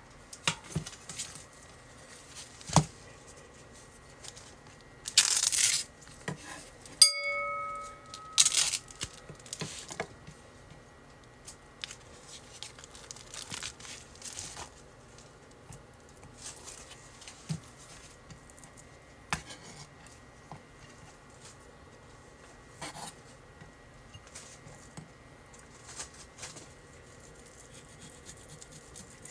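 Plastic wrap being torn and pulled off a foam tray of raw beef steaks, with two loud ripping bursts about five and eight and a half seconds in and a short ringing clink between them. After that come light clicks and taps of handling, and a knife slicing raw beef on a wooden cutting board.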